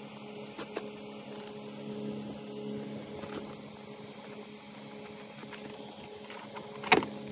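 Light clicks and taps from a plastic foam-dart blaster and its packaging being handled, with one sharper knock near the end, over a steady electrical hum.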